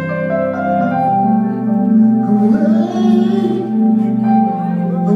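Live music at a sound check: a bell-like chord struck at the start and held ringing, with a voice singing over it partway through and again near the end, run through reverb.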